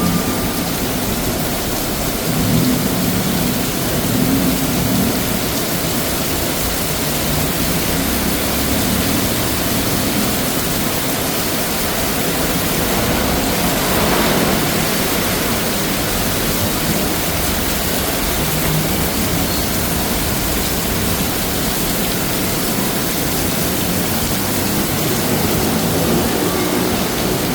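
Heavy tropical downpour: a loud, steady hiss of rain.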